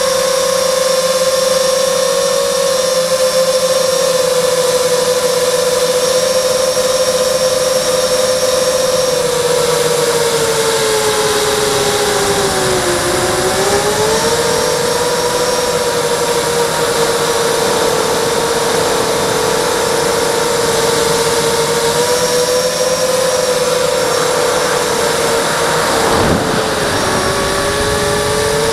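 Six-motor hexacopter's brushless motors (Multistar Elite 2204/2300KV) and Gemfan three-blade props whining steadily, heard from the onboard camera over rushing air. The pitch dips and climbs back about halfway through, and again near the end just after a brief rush of noise.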